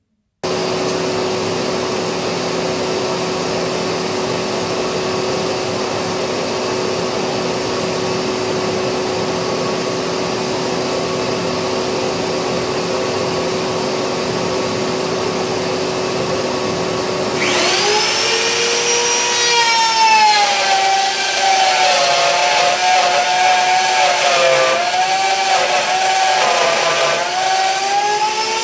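A dust-extraction vacuum runs steadily through its hose. About 17 seconds in, a Black & Decker plunge router starts and whines up to speed. Its pitch then dips and wavers as the 3/4-inch straight bit cuts a dado into the wood.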